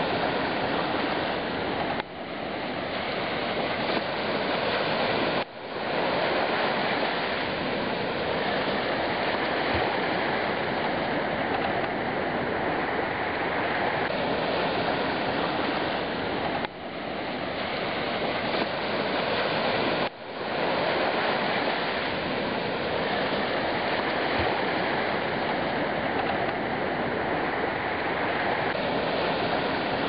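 Sea surf washing on a beach: a steady, continuous rush of water. A few times the sound drops suddenly and then builds back up.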